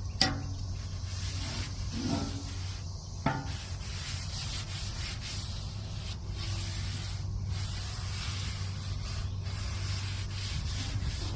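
Continuous scraping and rubbing across the hot steel top of a Blackstone griddle as stuck-on egg and food residue are worked off, with a couple of sharp knocks near the start and about three seconds in. A steady low hum runs underneath.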